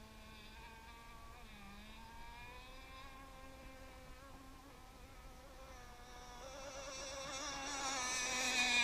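Two-stroke gas engine of a radio-controlled hydroplane boat running out on the pond, a thin high buzz that wavers slightly in pitch. It grows louder and a little higher over the last few seconds as the boat comes closer.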